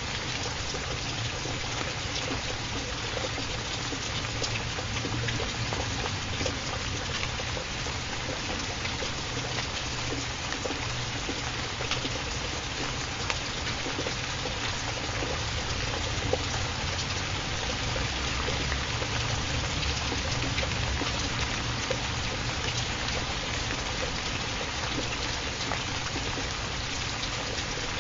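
Steady, unbroken water sound with a fine patter of drops over a low rumble.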